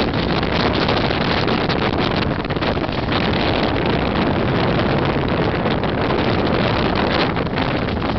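Squall wind buffeting the microphone aboard a sailboat: a loud, steady rush of wind noise with no engine note.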